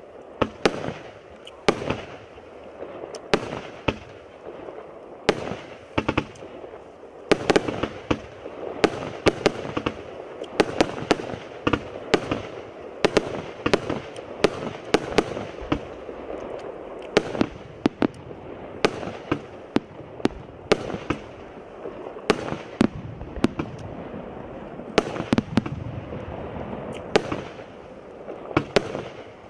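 B165 Atlas multi-shot firework cake firing: a continuous, irregular run of sharp shots, about one to two a second, as shells launch and burst overhead.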